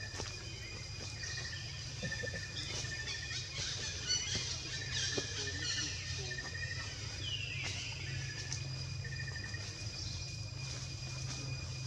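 Outdoor ambience of short bird-like chirps repeating about every half second over a steady hum and a thin high drone. A busier spell of high chirping comes in the first half, and a single falling squeal about seven and a half seconds in.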